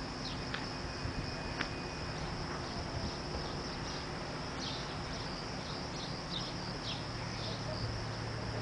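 Crickets chirring steadily in a high, continuous band, with a few short falling chirps now and then over a low background hiss.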